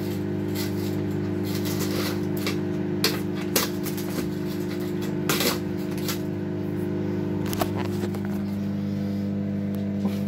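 A steady low hum from a running kitchen appliance, with scattered light clicks and taps.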